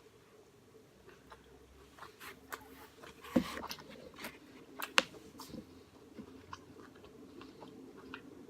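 Close-up chewing and mouth sounds of someone eating a Chipotle burrito bowl: soft, irregular smacks and small clicks, with a sharper click about three and a half seconds in and another about five seconds in.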